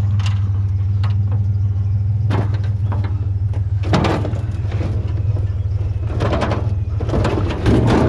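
Pickup truck engine idling steadily. Over it come metal clanks and rattles of scrap being handled: one knock about two seconds in, a louder clatter about four seconds in, and a run of clattering near the end.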